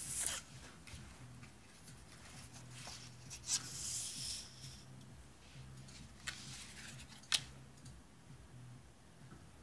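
Paper cards being handled and slid about: a few short rustles and swishes, loudest right at the start and again about three and a half seconds in, with a couple of sharp ticks, over a faint steady low hum.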